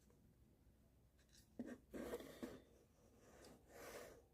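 Faint scraping of a screwdriver tip against the plastic rollers inside a ball mouse, picking out lint: a few short scratches from about a second and a half in, and a softer one near the end.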